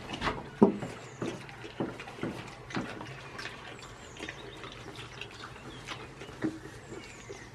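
Goat chewing crunchy vegetable slices: a run of wet crunches about two a second, the loudest about half a second in, thinning out after about three seconds.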